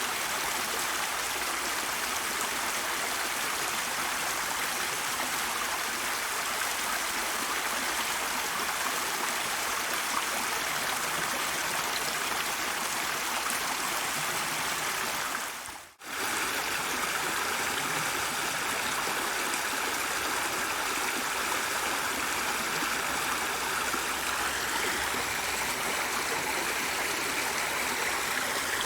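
Steady rushing water of a flowing stream. About halfway through it fades out briefly and comes straight back with a slightly different texture, as at a join between two recordings.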